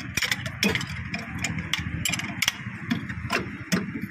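A run of sharp, irregular clicks, several a second, over a low steady hum.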